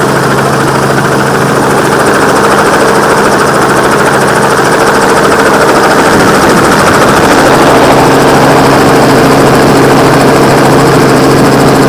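Helicopter engine and rotors running loud and steady, with a constant drone and a dense rushing noise.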